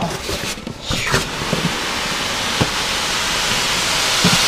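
A large polystyrene foam packing insert rubbing and scraping against the walls of a cardboard box as it is worked loose, a steady rushing scrape that grows louder toward the end, with a few soft knocks.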